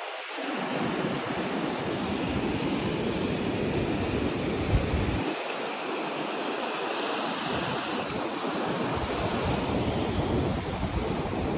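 Steady rushing wind noise, with deep gusts buffeting the microphone that drop away for a couple of seconds around the middle.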